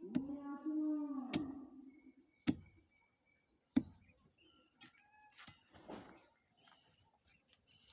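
A long, steady pitched call ends about a second and a half in. Two sharp knocks follow, with faint bird chirps.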